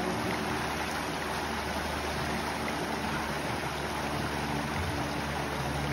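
Shallow rocky stream flowing steadily over stones, with a small cascade giving a continuous rushing sound.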